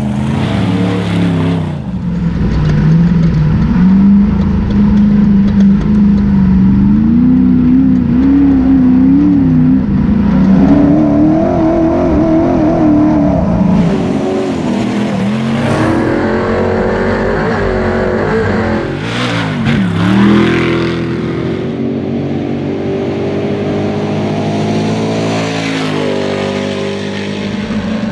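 Ultra4 race car's engine revving up and down under load as it crawls over rough trail, its pitch wavering rather than holding steady, with a sharp drop and climb in revs partway through.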